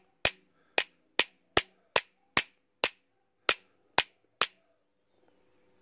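Small hammer tapping repeatedly on a brass Lockwood 245 padlock body, about ten sharp strikes at a steady pace of two to three a second, stopping about four and a half seconds in. The tapping is meant to make the hidden shackle-retainer-pin plug show as a shadow in the brass.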